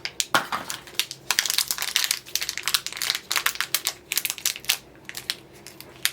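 Crinkling and crackling of mystery pin packaging being handled and opened by hand, an irregular run of quick crackles with pauses.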